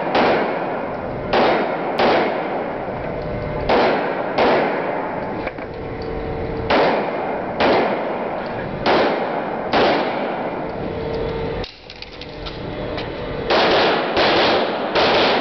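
Handgun shots fired in a covered indoor range, about a dozen single shots roughly a second apart, each with a short echo off the walls and ceiling. After a gap of a few seconds past the middle, four shots come in quick succession near the end.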